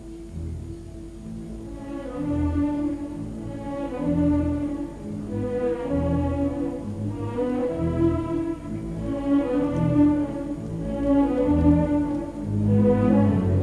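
Orchestral music: bowed strings play a slow melody over pulsing low bass notes, growing fuller about two seconds in.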